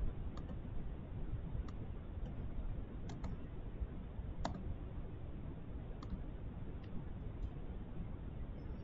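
Computer mouse clicking: about eight or nine short, sharp clicks at irregular intervals, over a faint steady room hiss.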